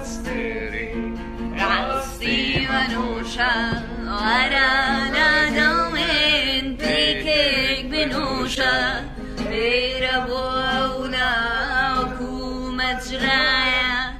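A woman singing a Kurdish song solo, her voice wavering with wide vibrato, in long phrases broken by short breaths. A steady low tone sounds beneath.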